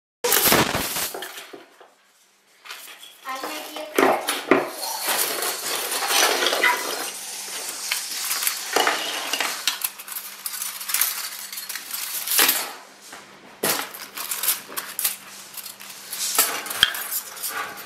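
A tape measure's flat steel recoil spring is pulled out of its housing with pliers. The thin spring steel scrapes, clinks and rattles in quick, uneven clicks as it uncoils, with a brief pause about two seconds in.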